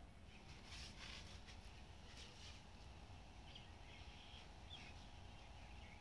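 Near silence: faint outdoor ambience with a low rumble and a few faint bird chirps.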